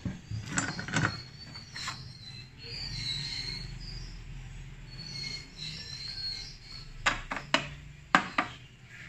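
Paper and a desktop wire binding punch being handled: a few light knocks and rustles as punched calendar pages are lifted off the machine, then a quick run of sharp taps near the end as a fresh stack of sheets is set down and evened on it.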